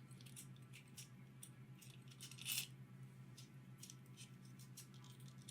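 Faint, scattered small clicks and light metallic taps, as of small metal tools and parts being handled, with one slightly louder click about two and a half seconds in, over a steady low hum.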